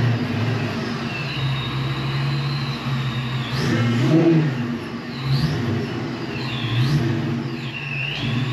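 Fox-body Mustang V8 engine running at low speed and blipped up in short revs a few times, with several high squeals sliding down and back up in pitch.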